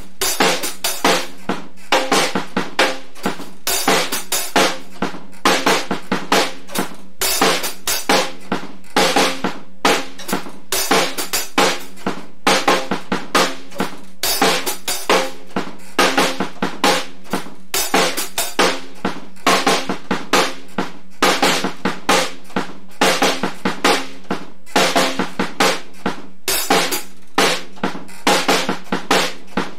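Fender Starcaster drum kit played in a steady, repeating beat, with snare and bass drum strokes following one another in quick, even succession.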